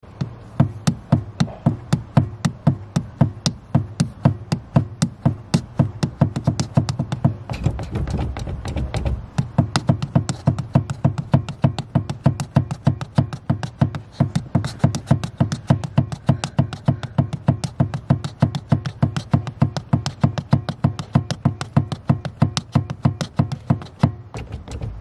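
Car accelerator pedal pumped rapidly under a slipper, giving a fast, even run of sharp clicks and taps, about three a second. A steady low hum lies beneath and swells briefly about eight seconds in.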